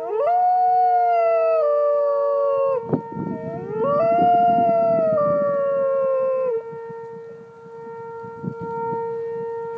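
Golden retriever howling twice, each howl rising quickly and then sliding slowly down in pitch. The second howl ends about two-thirds of the way through. A steady level tone sounds underneath throughout.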